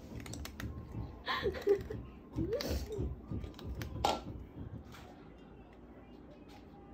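A cat eating from a bowl, its chewing making scattered small crunching clicks that die away after about five seconds. Two short murmured voice sounds come in about one and a half and two and a half seconds in, and are the loudest things heard.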